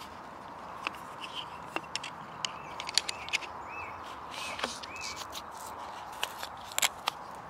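Scattered light clicks and knocks of shock-corded aluminium chair poles being folded and bundled together by hand. A bird chirps several times in the background.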